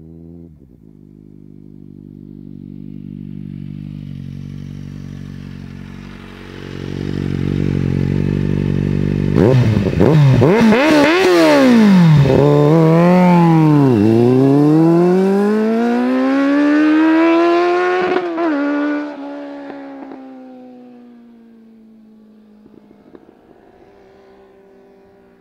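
Kawasaki Z750's 748 cc inline-four through an aftermarket Arrow exhaust, running at a steady note for several seconds. About nine seconds in it pulls away hard, the revs climbing and dropping at each gear change, loudest during this acceleration. After that it holds a slowly falling note that fades into the distance.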